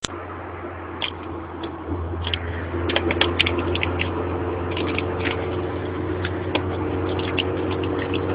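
A steady engine hum with a few even tones that grow stronger about three seconds in, overlaid with many scattered sharp clicks and rattles.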